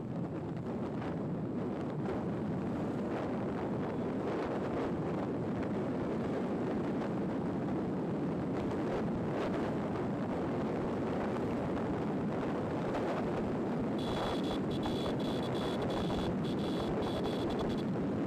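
Wind rushing over the microphone on a moving motorcycle, with road and engine noise beneath, steady throughout. Near the end a steady high tone sounds for about four seconds.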